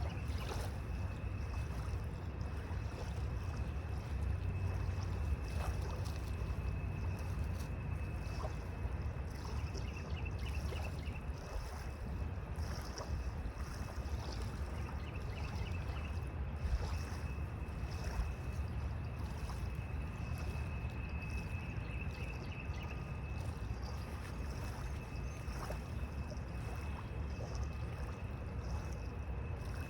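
Steady low outdoor rumble of wind and river, with insects droning in a thin, steady high tone that breaks into short trills now and then.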